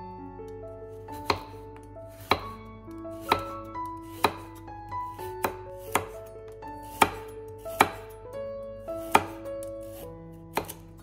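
Chef's knife slicing a carrot into rounds on a wooden cutting board: about ten sharp knocks, roughly one a second, as the blade cuts through and strikes the board.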